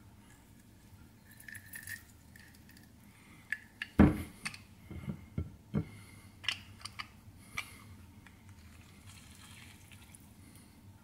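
Hand-held metal lime squeezer being handled and reloaded: one sharp knock about four seconds in, then a few seconds of light metal clicks and clinks.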